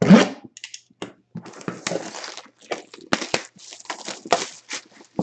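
Plastic shrink wrap being torn and crinkled off a cardboard memorabilia box as it is opened: a run of irregular crackles and tearing rustles.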